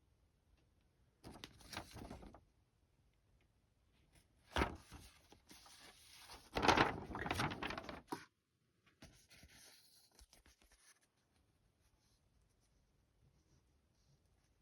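Paper rustling as an instruction booklet is handled and its pages are turned, in three bouts, the loudest from about four to eight seconds in.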